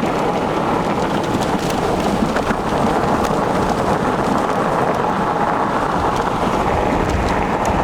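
Heavy rain and wind from a supercell thunderstorm: a loud, steady rushing hiss with a few scattered sharp ticks.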